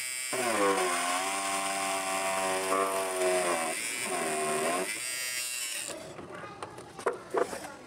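Homemade drill driven by an upgraded 555 DC motor running at 12 V, boring into a plastic casing: a steady motor whine that sags in pitch a few times as the bit bites and then picks up again, stopping about six seconds in. A few sharp knocks follow.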